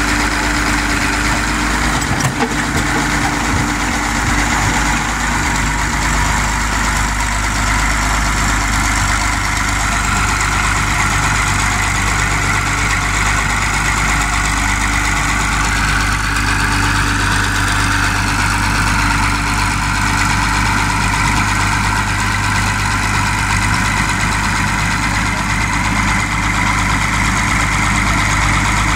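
International Harvester TD-18 crawler's six-cylinder diesel engine running steadily at low speed as the crawler drives, with a single clank about two seconds in.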